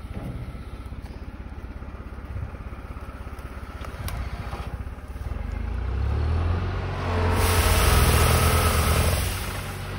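Spedo Fruipick hydraulic olive-tree shaker running steadily with its clamp on the trunk. About five seconds in it revs up and starts shaking the tree, with loud rattling of branches and leaves for two to three seconds that eases off near the end.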